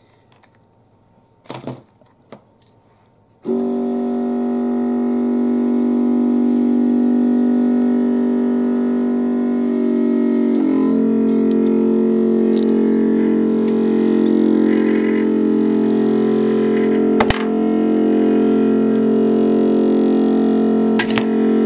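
A few faint handling clicks, then about three and a half seconds in background music starts abruptly: a sustained synth-like drone of held chords that shifts to a new chord about ten seconds in.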